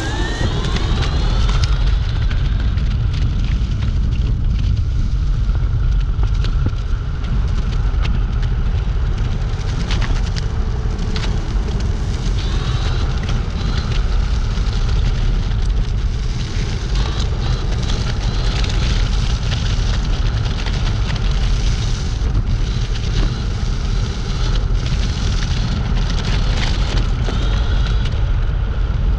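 Wind rushing and buffeting over the microphone on a moving Dualtron Compact electric scooter. The motor's whine rises in pitch as it accelerates at the start, under a steady crackling hiss.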